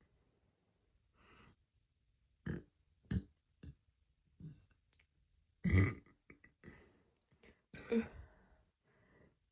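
A girl burping: a run of short burps, the two loudest and deepest about six and eight seconds in.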